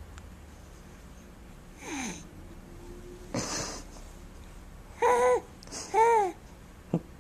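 Infant's happy vocal sounds: a falling coo about two seconds in, then a breathy laughing exhale. Near the end come two loud, high squeals about a second apart, the second rising and falling.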